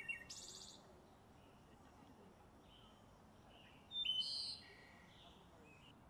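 Songbirds chirping: a quick rapid trill right at the start and a brief burst of song about four seconds in, over a faint steady outdoor background hiss.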